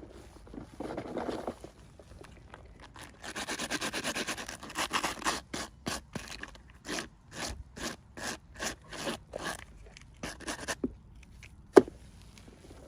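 Hands scraping and rubbing at miniature-toy packaging while unboxing. A dense scrape gives way to a quick run of short strokes, and a single sharp click comes near the end.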